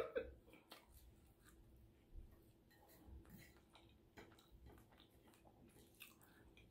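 Near silence: quiet chewing, with a few faint, scattered clicks of a metal fork against the dishes.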